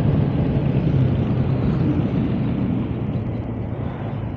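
Honda ADV 160 scooter's single-cylinder engine running at cruising speed, a steady low drone under wind and road noise, gradually getting a little quieter.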